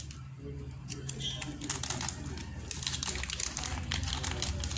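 A small clear plastic zip-lock bag being pulled open and handled, with scattered crinkles and small clicks as the brass SMA connectors inside shift about. A low steady hum runs underneath.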